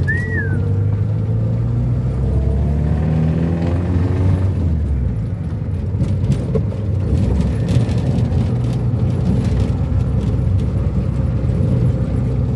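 Ford Corcel's four-cylinder engine running as the car is driven, its note slowly falling in pitch over the first few seconds as it eases off, then a steady rumble of engine and road. A brief high chirp sounds right at the start.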